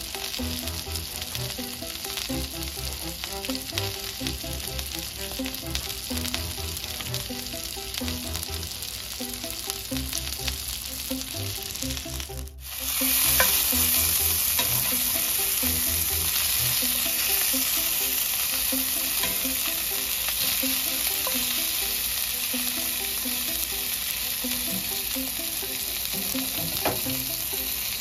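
Food sizzling on hot pans: pancakes frying on a griddle, then, after a sudden cut about halfway through, sausage links frying in a cast iron skillet with a louder, brighter sizzle.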